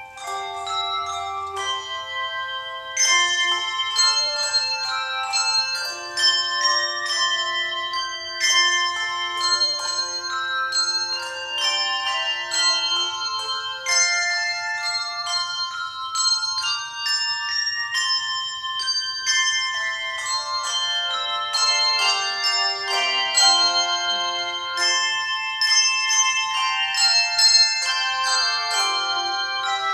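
A tune played on tuned bells: many struck notes, each starting sharply and ringing on, overlapping one another at a lively pace.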